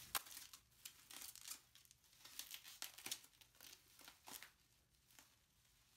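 Bubble wrap crinkling and rustling as it is pulled off a hardcover book: a quiet, irregular stream of crackles that thins out near the end.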